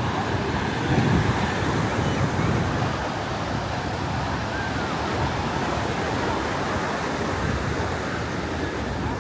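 Ocean surf breaking and washing up on a beach: a steady rush of wave noise.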